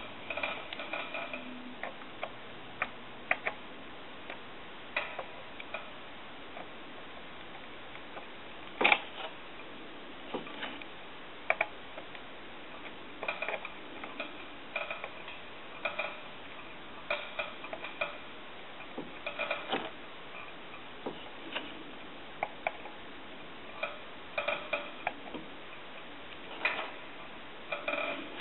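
Irregular light metallic clicks and taps from small metal hand tools working on telephone parts during soldering. Some taps ring briefly.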